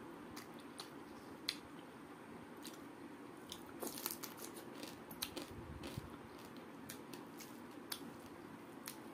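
A person eating crab curry with rice by hand: chewing and biting into crab, with scattered sharp crunchy clicks, the loudest cluster about four seconds in as a mouthful goes in, and soft squishing of rice being mixed by hand on a steel plate.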